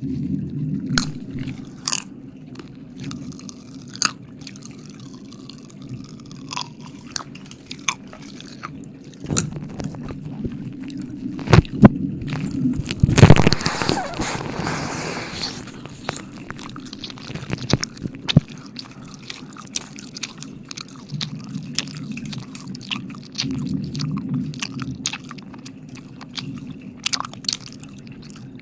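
Close-up ASMR wet mouth sounds into the microphone: licking and smacking, heard as many sharp wet clicks. About halfway through comes a loud rush of breath blown onto the mic lasting a couple of seconds. A low steady hum runs underneath.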